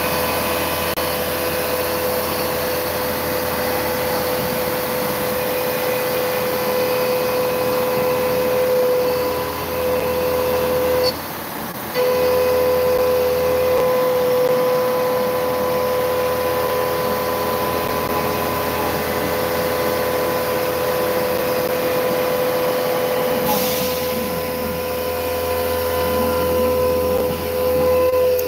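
Langmuir Systems MR-1 CNC mill cutting mild steel with a six-flute carbide end mill at 5,000 RPM, with mist coolant spraying. It makes a loud, steady, high-pitched cutting whine over a hiss, and the whine drops out for under a second about eleven seconds in.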